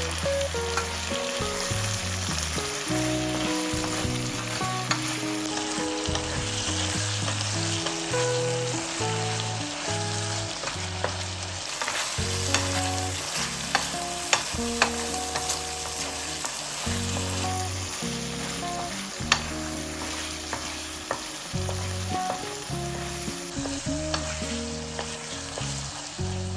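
Food sizzling in a frying pan as it is stirred, with occasional sharp taps of a utensil against the pan.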